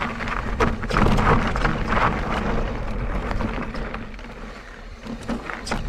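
Mondraker Crafty electric mountain bike riding down a rough trail: tyres on dirt and stones with frequent rattles and knocks from the bike, over a steady rumble of wind on the microphone. It goes a little quieter around four to five seconds in, then picks up again.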